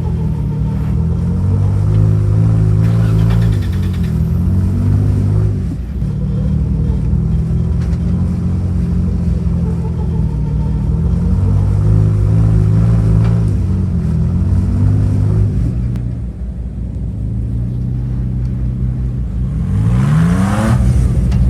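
Simulated truck engine sound for an RC scale crawler, running steadily with the revs easing off and picking up again every few seconds, then a quick rising rev near the end.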